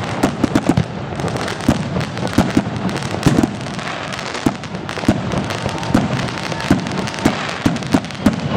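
Aerial fireworks shells bursting, a steady run of bangs, pops and crackles, several a second, overlapping one another.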